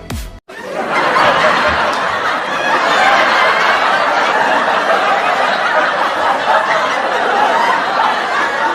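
Sitcom laugh track: a studio audience laughing together, swelling in about half a second in and holding steady. Just before it, an electronic music beat cuts off.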